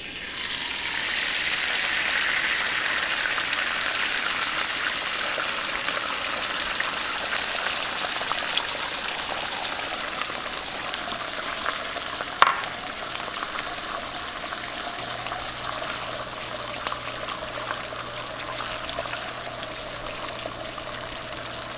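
An egg frying in hot butter in a 12-inch Stargazer cast iron skillet: a loud sizzle that starts as the egg hits the pan, swells over the first couple of seconds and then slowly eases off. A single sharp click about twelve seconds in.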